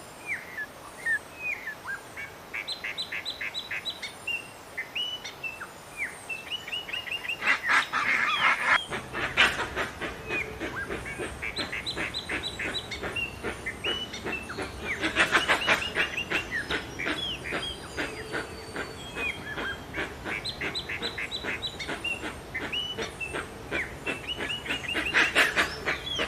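Birds calling: runs of short chirping notes repeated in quick succession, swelling three times into louder, denser bursts of calls.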